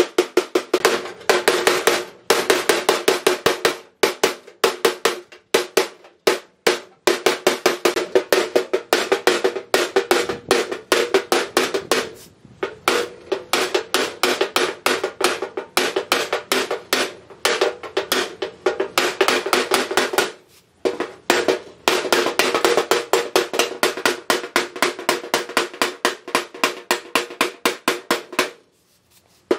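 Rapid hammer blows on a rusty steel car body panel, several strikes a second in runs broken by short pauses, the sheet metal ringing with each hit as it is beaten flat.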